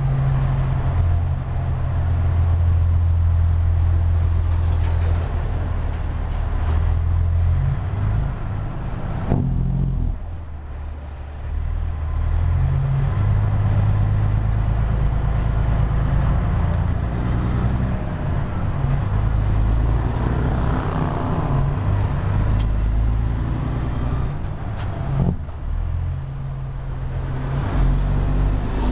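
Caterpillar C15 inline-six diesel of a Peterbilt 379, heard from inside the cab, pulling through the low gears of an 18-speed transmission: the engine note climbs and drops with each shift, with a brief let-off about ten seconds in.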